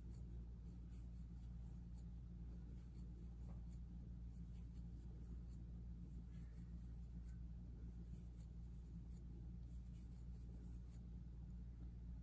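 Faint, irregular scratching and light ticks of a 6 mm crochet hook pulling yarn through loops while making a foundation chain, over a steady low hum.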